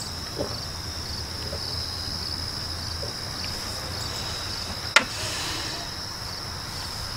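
Subway car interior ambience: a low rumble under a steady high-pitched whine with a faint regular chirping in it, and one sharp click about five seconds in.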